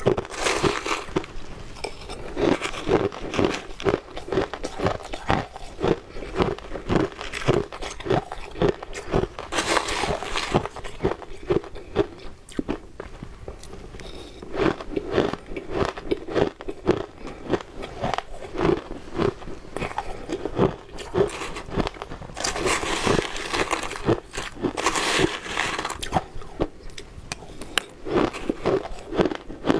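Close-up crunching and chewing of frozen shaved ice, a dense run of irregular crisp crackles, with a metal spoon scraping and scooping the frozen flakes in a plastic tray.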